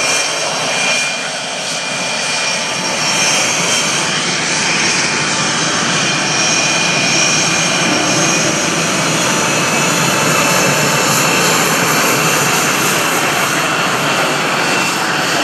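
L-39C Albatross jet trainer's single turbofan engine passing overhead in an aerobatic display: a steady jet rush with a high turbine whine, swelling louder about two seconds in and holding.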